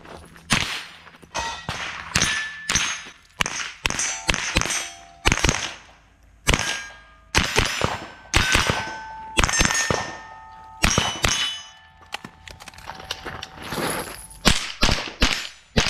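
A rapid string of rifle shots from an AR-style rifle, with steel targets ringing after the hits. Many shots are followed by a ringing tone that lasts up to a second, each plate at its own pitch. The shots come in quick pairs and runs with short pauses between.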